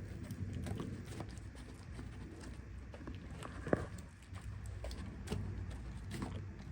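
Cats eating grilled fish: irregular small clicks and smacks of chewing, with one sharper click a little past halfway.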